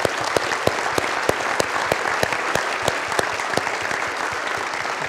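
A congregation applauding: many people clapping at once, with sharp claps close by standing out over the rest until a little past halfway.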